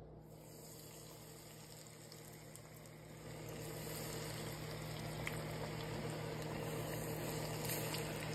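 Hot oil sizzling and crackling in a small saucepan as food deep-fries, growing louder about three seconds in, over a steady low hum.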